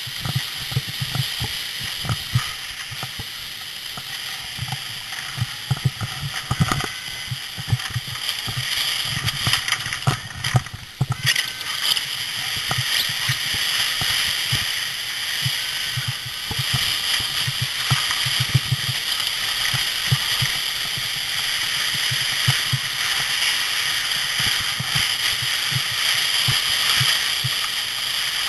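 A sled sliding down a snowy slope: a steady hiss and scrape of snow, with frequent low bumps and knocks that thin out about two-thirds of the way through.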